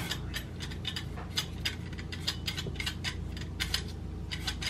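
A carrot being shaved into long thin strips with a handheld julienne peeler: quick, even scraping strokes, about three a second.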